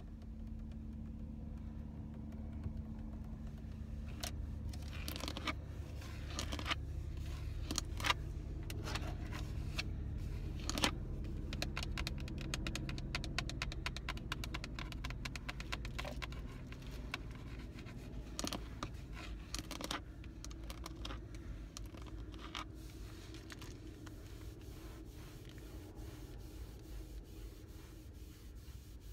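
Fingernails tapping and scratching on a Nissan steering wheel's spokes and control buttons: a run of sharp taps and scrapes that starts about four seconds in and thins out near the end, over a low steady hum.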